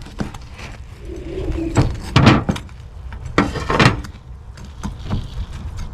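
A knife chopping through crispy deep-fried pork belly on a cutting board: several crunching chops, the loudest about two seconds in, with a few more following.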